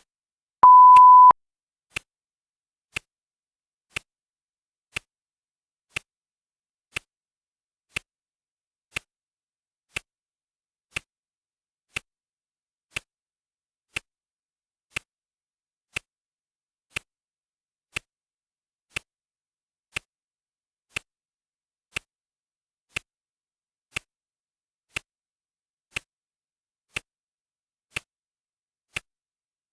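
Clock ticking steadily once a second. Shortly after the start a single loud, steady high-pitched electronic beep sounds for under a second, the timer's signal that another minute has passed.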